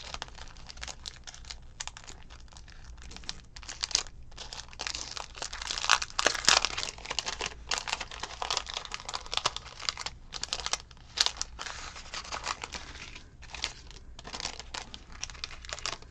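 Crinkling and rustling of a clear cellophane sleeve as it is opened, and of the paper die cuts inside being handled. Irregular small crackles throughout.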